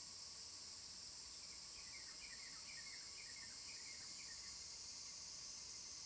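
Higurashi (evening cicadas) calling in a steady, high, shimmering chorus. From about a second and a half in, a quick run of short falling notes at a lower pitch sounds for about three seconds over the chorus.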